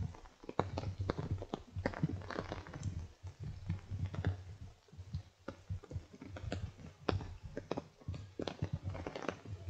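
Raindrops tapping irregularly on a wet umbrella, a quick scatter of small ticks with low dull thuds underneath.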